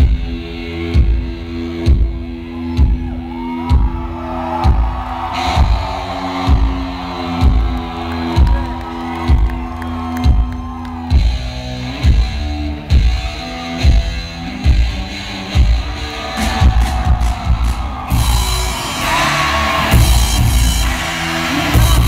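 Live noise-pop band played through Marshall guitar stacks, loud and distorted as heard from in the crowd: heavy booming beats about once a second under a held droning chord. About 18 seconds in the sound grows denser and brighter.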